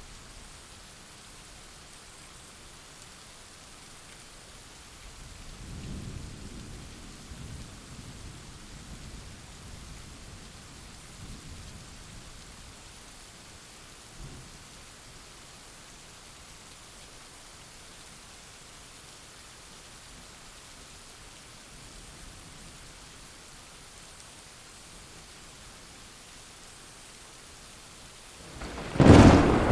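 Steady rain with a low roll of distant thunder from about five seconds in, then a loud, sharp thunderclap near the end.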